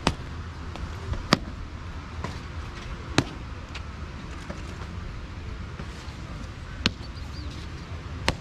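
Five sharp, irregularly spaced boot stamps on a hard court as a cadet marches up, halts and salutes in drill, over a steady low rumble.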